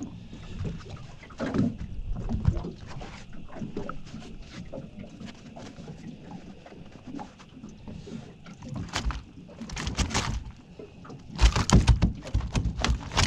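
A freshly landed flathead being handled in a landing net on a boat's deck: irregular knocks, rustles and thumps of the fish, net and hands against the deck, with a burst of louder thumps near the end.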